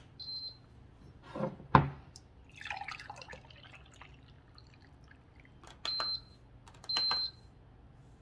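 A glass electric tea kettle is set down with a clunk, and tea is poured from it into a ceramic mug. This is followed by two short electronic beeps from the kettle base's buttons as the keep-warm temperature is set again, with a similar beep just after the start.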